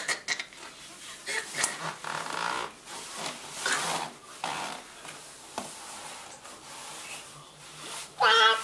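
Rustling and rubbing as a baby moves around inside a portable play-yard crib: body and sleepsuit on the mattress sheet, hands against the sides, with a few light knocks just at the start. A short, high baby vocal sound comes near the end.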